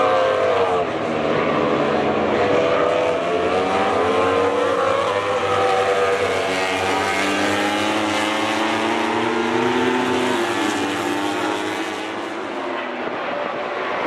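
Several MotoGP racing motorcycles passing at speed, more than one engine heard at once, their pitch rising and falling with throttle and gear changes. A long rising note breaks off about ten seconds in, then the sound dips slightly.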